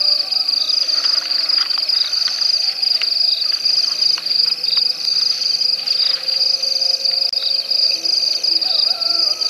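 Night insects, crickets among them, chirring in a steady high-pitched trill, with a pulsing call over it about once a second.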